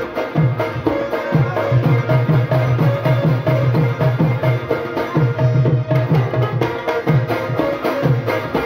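Rabab being played: a fast run of plucked notes in a Pashto folk melody, over a steady rhythm of low, drum-like strokes.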